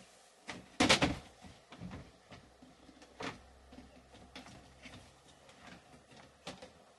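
A series of sharp knocks and bumps from things being handled in a small room, the loudest a quick cluster about a second in, with a faint low hum between them.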